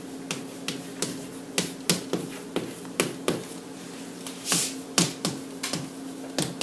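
Chalk writing on a chalkboard: irregular taps and short scratches as each letter is stroked, about two or three a second, with a couple of longer scratches past the middle. A steady low hum sits underneath.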